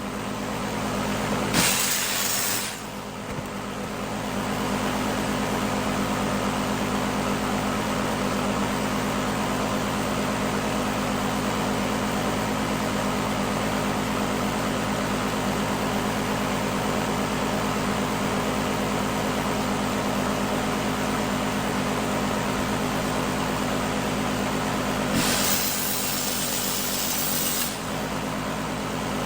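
Power tool running steadily while cutting out the rotted bottom of a steel Beetle door skin, with two louder harsh hissing bursts, one about two seconds in and one lasting a couple of seconds near the end.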